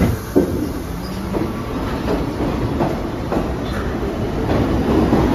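New York City subway train on the IRT Lexington Avenue line running through the station, its wheels knocking over the rail joints in an uneven series of clacks. The rumble grows louder toward the end.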